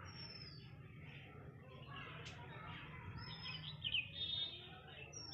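Birds chirping, one giving a short falling whistle three times, with a cluster of quick chirps about three to four seconds in. A single light click about two seconds in.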